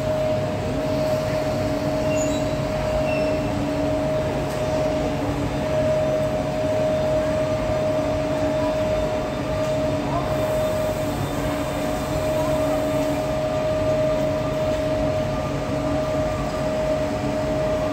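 SBB Re 460 electric locomotive moving off with its train, giving a steady high electrical hum over the low rumble of the rolling train.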